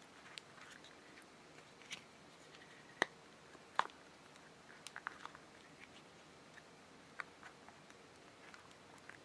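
Small clicks, ticks and rubbing from handling a silicone key cover as it is stretched and pressed onto a round plastic remote engine-starter fob, with two sharper clicks about three and four seconds in.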